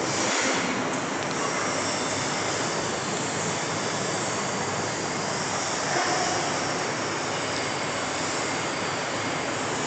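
Steady, fairly loud hiss of background noise with no clear tone or rhythm.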